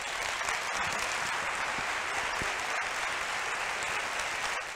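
Audience applauding steadily after a talk, fading out at the very end.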